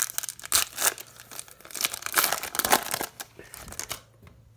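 Bowman Chrome baseball card pack wrapper crinkling and tearing as it is opened, a dense run of crackles that stops about four seconds in.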